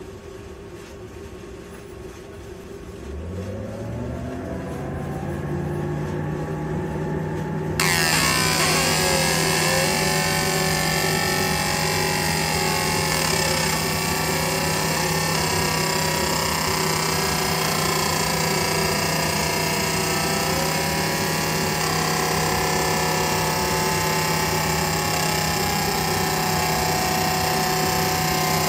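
Laser marking machine engraving a metal plate. A fan spins up and settles into a steady hum, then about eight seconds in engraving starts abruptly: a loud hiss full of wavering, warbling high tones as the beam is scanned across the metal.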